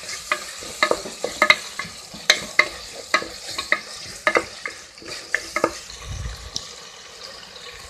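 Wooden spatula stirring tomatoes frying in oil in an aluminium pressure cooker, knocking irregularly against the pot over a steady sizzle. The tomatoes are being sautéed until they soften. The knocks stop about two thirds of the way through, leaving the sizzle.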